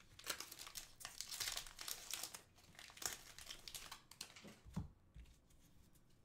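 Plastic wrapper of a Panini football card pack being torn open and crinkled by hand: a dense run of crackling for about three seconds, then scattered crinkles and a soft thump about five seconds in.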